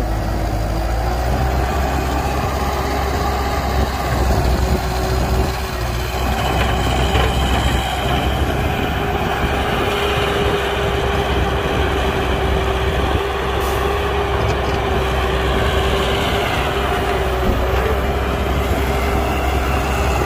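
Heavy diesel construction machinery running steadily: a low engine rumble with a steady mid-pitched whine on top.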